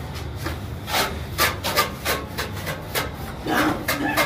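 Plastering trowel scraping and rubbing wet cement mortar along a beam edge in repeated short strokes, about two to three a second.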